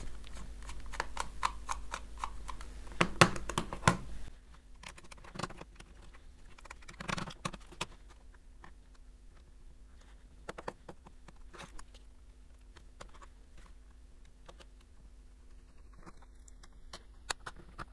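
Small clicks and taps of tools working on a feature phone as its old display is taken off, busy for the first few seconds, then sparser. A low electrical hum underneath drops off about four seconds in.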